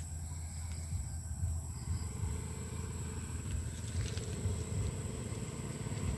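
Small motorcycles approaching along the road, their engine hum growing louder toward the end.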